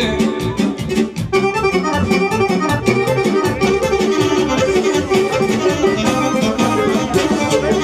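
Instrumental folk dance music led by accordion over a steady beat, with a brief thinning about a second in before the full band returns.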